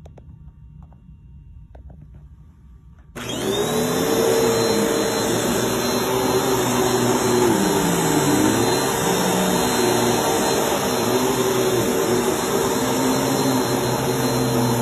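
Bissell PowerForce Helix Turbo vacuum cleaner switching on about three seconds in, its motor whine rising quickly and then running steadily at full power. Before it starts there are only a few faint clicks.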